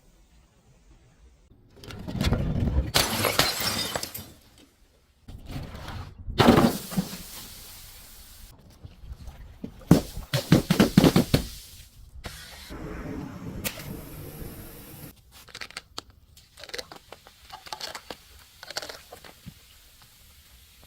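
Brittle objects crunching, cracking and shattering as they are crushed, in several separate bursts: a long crunch about two seconds in, a sharp crack a few seconds later, a dense run of crackling near the middle, and smaller cracks after that.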